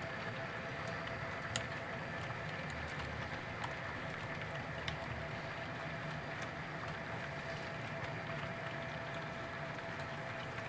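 Model railroad freight cars rolling steadily along the track, a continuous rumble of small wheels on rail, with a few sharp clicks in the first half.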